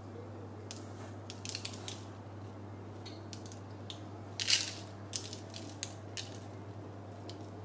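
Sesame seeds pinched from a small jar and sprinkled onto bun dough on a parchment-lined tray, heard as faint scattered ticks and rustles. About four and a half seconds in comes one louder, brief rustle, all over a low steady hum.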